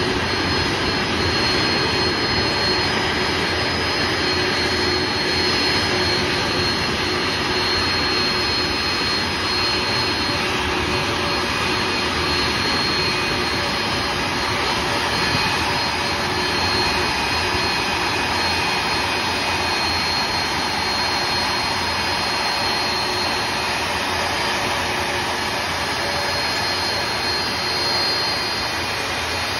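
General Electric CF6 turbofan engines of an Airbus A330-200 running at idle as the airliner taxis in to park: a steady jet rush with a high-pitched whine held over it.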